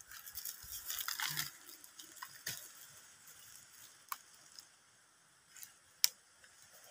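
Dry banana leaves and stalks rustling and crackling as they are pushed aside by hand, then a few faint sharp clicks, the loudest about six seconds in.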